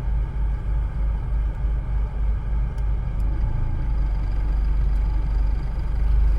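Volkswagen Passat B5.5 with a 1.8T four-cylinder and a swapped-in five-speed manual gearbox, driving in gear, heard from inside the car: a low, pulsing rumble for the first few seconds, then steadier. It carries the rotational rattle and scraping from the bell housing that rises with wheel speed, a fault left by the manual swap.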